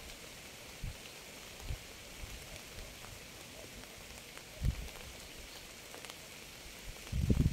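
Steady rain hiss with a few soft low thumps. Near the end a loud, uneven low rumble sets in.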